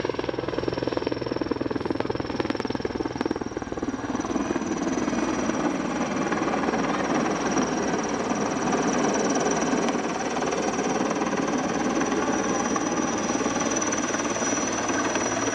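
Erickson S-64 Air-Crane heavy-lift helicopter hovering overhead: a fast, steady chop of the main rotor blades with a high, steady turbine whine from its twin turboshaft engines.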